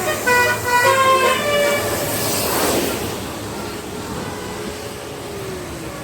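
A bus's telolet horn, a multi-tone air horn, playing a quick run of stepped notes for about a second and a half. It is followed by the rush of the vehicle passing close by.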